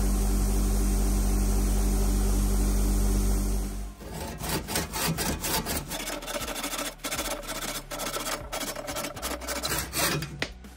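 Bench buffing-wheel motor running with a steady hum as a wooden handle is held to the wheel. About four seconds in this gives way to a handsaw cutting through the end of a wooden hammer handle in quick repeated strokes.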